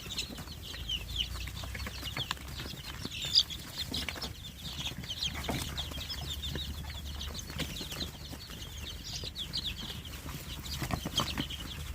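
A flock of two-week-old Sonali chicks cheeping together, a dense stream of short high peeps overlapping throughout.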